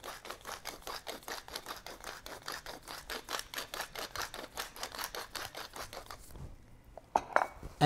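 Wooden pepper mill being twisted to grind black pepper, a fast, even run of grinding clicks that stops about six seconds in, with a brief knock near the end.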